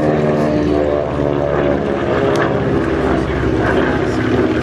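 A Beechcraft 18's twin radial piston engines and propellers droning steadily as the aircraft flies past on a display pass.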